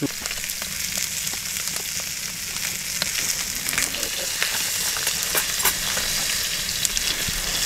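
Fish frying in a cast-iron skillet over a wood fire: a steady sizzle with scattered small pops and crackles.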